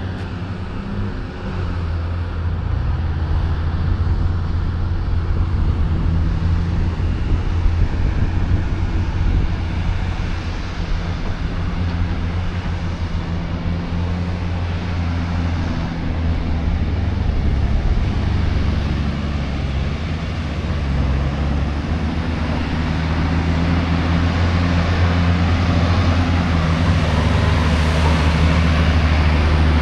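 Diesel engine of a Cat 735 articulated dump truck running steadily under load, with a low, even drone that grows louder over the last several seconds as the truck comes closer.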